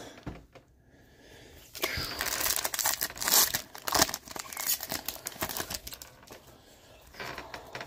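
A trading-card pack's wrapper being torn open and crinkled by gloved hands as the cards are pulled out, starting about two seconds in and going quiet again near the end.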